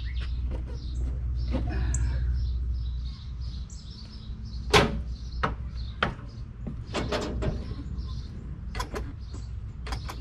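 Knocks and clunks of someone climbing a travel trailer's metal fold-out entry steps and moving at its doorway, the loudest about five seconds in. A low steady hum runs under the first three seconds and then stops.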